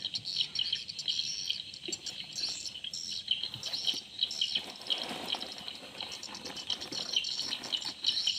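Many small birds chirping and twittering together, with insects trilling underneath. A soft, noisy rustle comes in around the middle.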